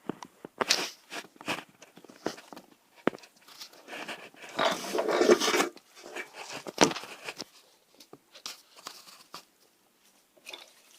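Hands working on a G scale model passenger car and its wheel trucks: scattered small clicks and rubbing, a denser stretch of scraping about four to six seconds in, and a sharp click just before seven seconds.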